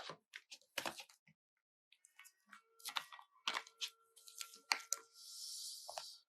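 A package being unwrapped: plastic or paper packaging rustling and crackling in irregular sharp bursts, then about a second of steady tearing near the end.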